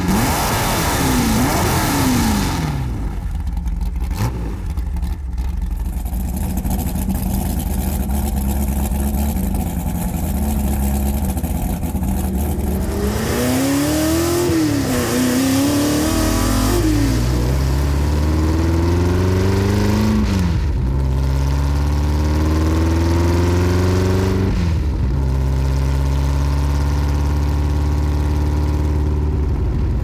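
Ford GT40's straight-piped V8 exhaust, loud: a few quick throttle blips, a steadier stretch, then hard acceleration from about halfway, the revs climbing in long pulls with a sudden drop at each upshift, twice.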